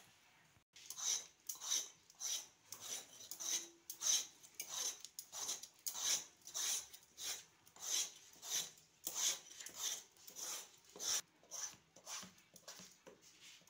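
Vegetable peeler scraping the skin off a bottle gourd in quick, even strokes, about two a second, starting about a second in.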